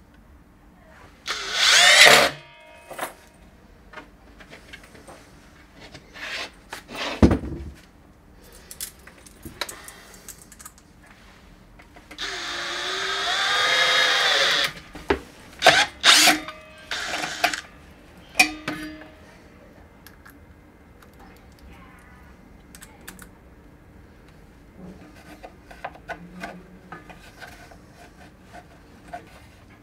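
Cordless drill/driver driving screws into plywood in short runs, the longest about 12 seconds in and lasting some two and a half seconds with its motor pitch wavering. Clicks and knocks of handling the drill and bracket fall between the runs.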